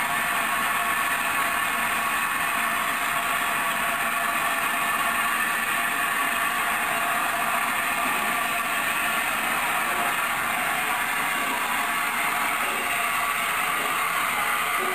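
A1 Peppercorn Pacific steam locomotive Tornado giving off a steady hiss of steam as it stands and begins to edge away, with no distinct exhaust beats.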